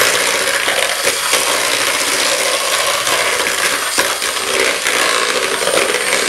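Electric hand mixer running steadily, its wire beaters whipping egg whites and sugar in a plastic bowl toward stiff peaks for meringue.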